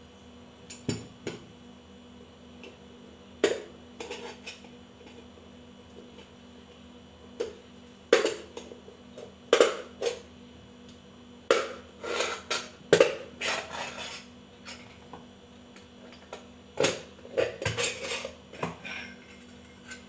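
Irregular metallic clinks and knocks as the ceiling fan's cover and motor body are shifted and turned against each other to line up the screw holes during assembly.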